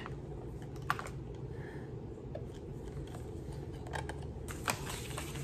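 Light clicks and rustling as a small battery-operated gadget is handled: a sharp click about a second in, two more near the end with a short rustle. A steady low hum lies underneath.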